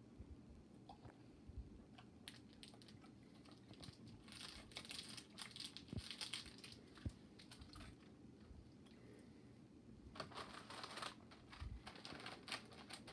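Plastic snack wrapper crinkling and being torn, in two bouts of quick crackles, about four seconds in and again about ten seconds in.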